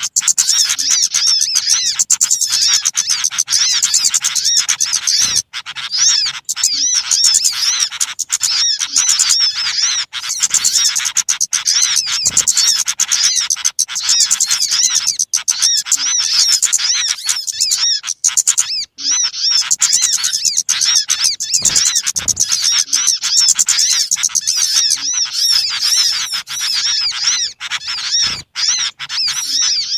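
Bird-lure recording of many small birds calling noisily together: a dense, rapid, high-pitched chattering and chirping that runs on with only a few brief breaks.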